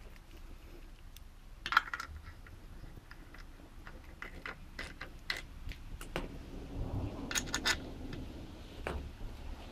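Scattered metallic clicks and clinks from a hand tool and bolts as an electronic throttle body is bolted onto a Mercedes M272 V6 intake manifold. There is a sharper clatter about two seconds in and a quick run of clicks about three-quarters of the way through.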